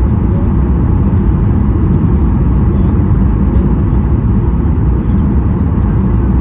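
Boeing 737-800 airliner noise during a windy landing: a steady, loud low rumble with no distinct events.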